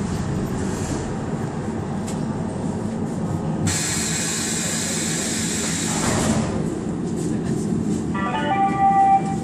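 Budapest Metro line 1 train braking to a stop at a station: a steady low running rumble, then a hiss of released air lasting about two and a half seconds as it comes to a halt. Near the end comes a short series of stepped, falling electronic tones.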